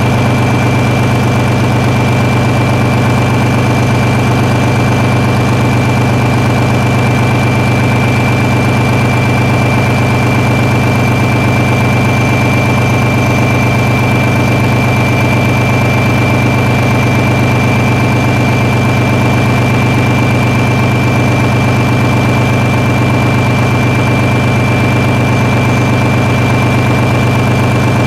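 Large engine idling steadily: an even, deep hum with a thin high-pitched whine over it, unchanging throughout.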